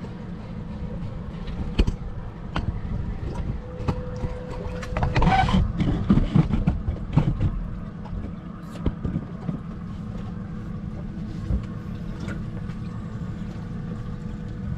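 Boat's outboard motor running low and steady, with scattered knocks and clatter on deck and a louder rush of sound about five seconds in.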